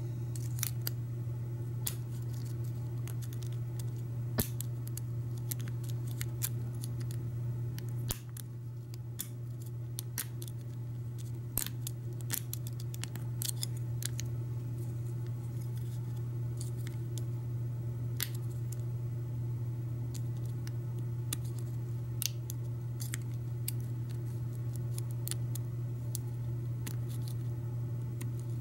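Lock pick ticking and scraping against the pins inside an American 1100 padlock held under tension, a pin-tumbler lock with serrated and spool pins: irregular small metallic clicks, several a second, over a steady low hum.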